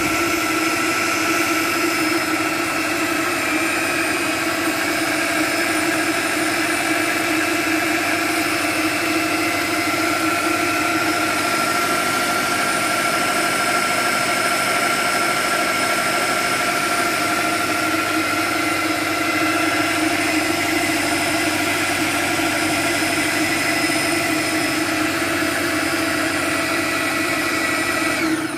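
Ninja Professional Plus Kitchen System blender motor running steadily with an even whine while mixing chocolate chip cookie dough. It cuts off abruptly at the end, as its Auto-iQ program finishes and shuts off automatically.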